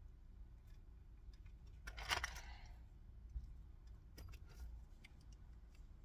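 Faint handling noise of car stereo harness wires being twisted together by hand: a louder scratchy rustle about two seconds in, then a few light clicks.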